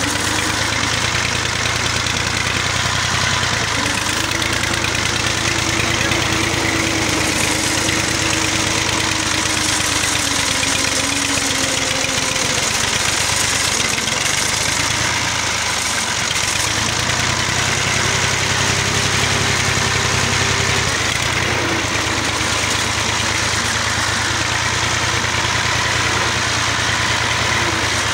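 Farm tractor's diesel engine running steadily with a fast, even chug, heard from on board the moving tractor.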